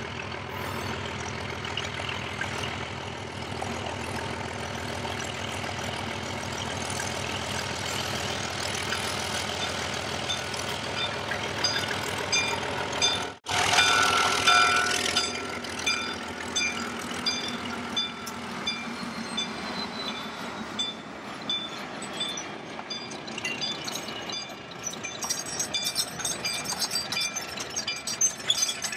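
Narrow-gauge Alco diesel locomotive's engine running steadily as it approaches. About halfway through, it is running close by as the locomotive and its freight cars roll past, with a regular pattern of high squeals and clicks from the wheels on the rails.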